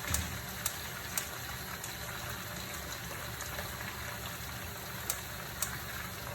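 Spinach sautéing in hot olive oil in a covered pot over high heat: a steady sizzle with a few sharp pops and spits, over a low steady hum.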